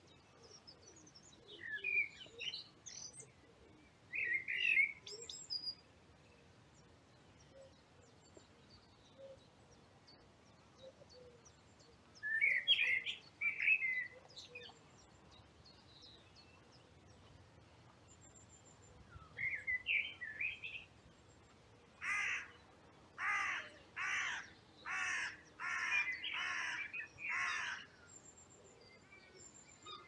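A crow cawing about seven times in a steady series near the end. Before that, a Eurasian blackbird sings several short warbled phrases with pauses between them.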